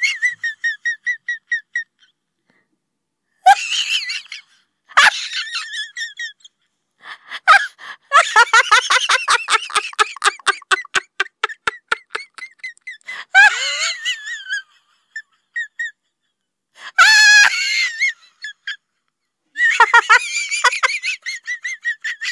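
Bursts of shrill, high-pitched laughter and squeals, some in quick repeated pulses, with stretches of dead silence between them.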